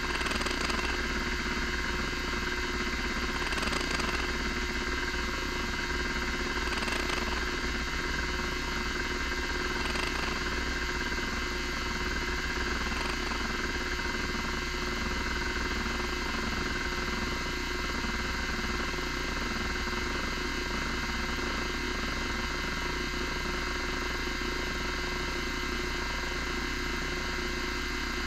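Miniscribe 3425 MFM hard drive running: a loud, steady whine from the spindle motor, with the stepper motor rapidly stepping the heads back and forth across the tracks during a surface scan that is turning up bad sectors.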